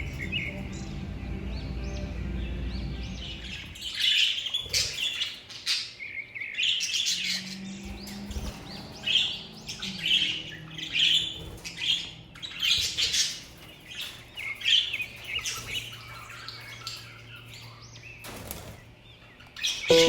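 Budgerigars chirping in a run of short, quick bursts from about four seconds in, over a low steady hum at the start.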